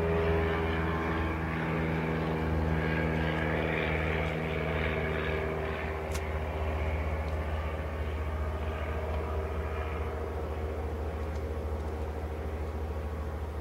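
Propeller airplane's engine droning overhead, a steady pitched drone that fades away over the first half, leaving a steady low hum.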